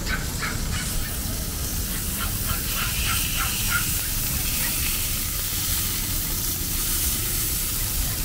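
An animal calling in quick runs of short repeated yelps, about three or four a second, over a steady hiss of outdoor background noise; the calls break off through the middle.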